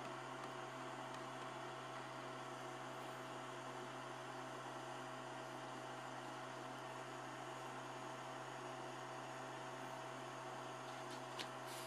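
Steady low electrical hum over an even hiss, unchanging throughout, with one short click near the end.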